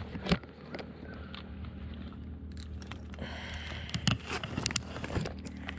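Scuffing and scattered sharp knocks on a rocky riverbank, a cluster of them about four seconds in, over a steady low hum.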